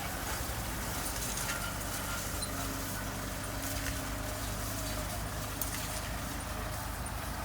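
Farm tractor engine running with a steady low hum, with a few faint clicks.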